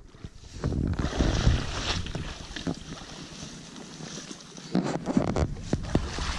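Splashing steps and swishing brush in a shallow marsh as a small aluminium jon boat is hauled through the water to the bank, with a run of sharp knocks in the last second or two.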